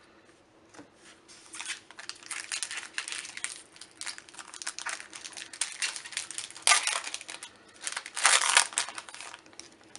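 Foil Magic: The Gathering booster pack wrapper crinkling and crackling in irregular bursts as it is handled and opened, loudest near the end.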